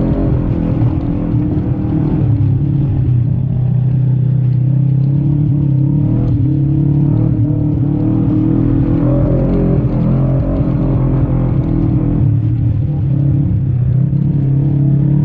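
Segway Villain side-by-side UTV engine running hard at a steady high speed, a loud even drone with slight shifts in pitch.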